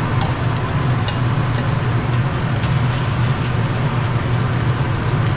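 Gas wok burner running with a steady low roar under a wok of stir-frying egg and vegetables, with a few light ticks of the metal spatula against the wok.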